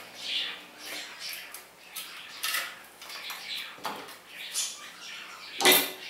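Hand tools and small metal parts clinking and clattering on a workbench as they are handled, with irregular short knocks and a louder one about a second before the end.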